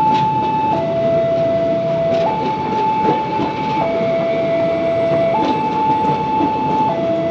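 An electronic two-tone warning signal steps back and forth between a low and a high pitch, each held about one and a half seconds. It sounds over a steady rumbling din with scattered clicks.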